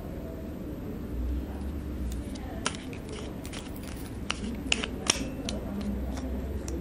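Metal flashlight's end cap being unscrewed by hand and pulled off the body: a run of sharp clicks and metal scrapes over a low rumble of handling, the loudest clicks about five seconds in.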